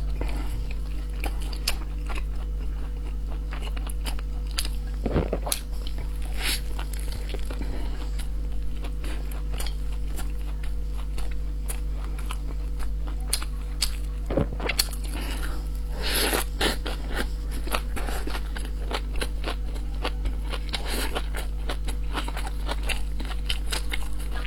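A person chewing and biting food close to the microphone: a run of small wet mouth clicks, with a few louder bites and crunches now and then, over a steady low hum.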